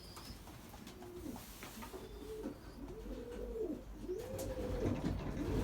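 Racing pigeons cooing, a string of overlapping coos that each rise and fall in pitch, starting about a second in and growing louder.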